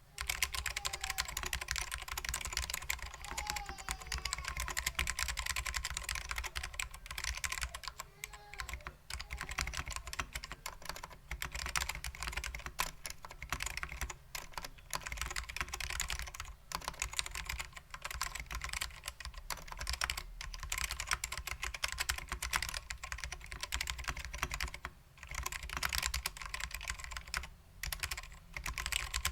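Continuous fast typing on a custom 60% keyboard with lubed SKCM Black Alps switches, a stainless steel plate and vintage Alps PBT keycaps: a dense run of keystroke clacks, with brief pauses about halfway and again near the end.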